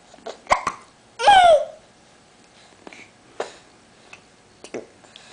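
A young child hiccuping: short, sharp hiccups, two in quick succession near the start and a few more later. About a second in comes the loudest sound, a brief voiced cry from the child that falls in pitch.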